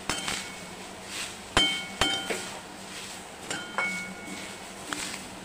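Slotted metal spatula stirring grated coconut in a steel kadai: a soft scraping rustle broken by sharp metal clinks against the pan that ring briefly, two close together about one and a half seconds in and another about three and a half seconds in.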